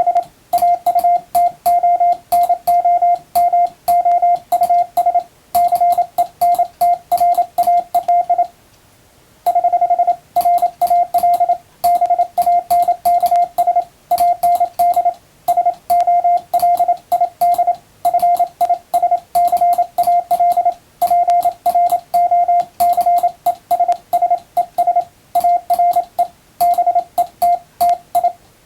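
Morse code sent with an electronic keyer: a single steady mid-pitched beep keyed on and off in fast dots and dashes, spelling out English plain text, with a faint click at each keying. There is a gap of about a second roughly eight and a half seconds in, then the sending resumes.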